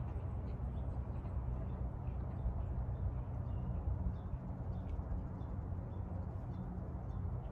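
Outdoor lakeside ambience: a steady low rumble with a few faint, short bird chirps scattered through it.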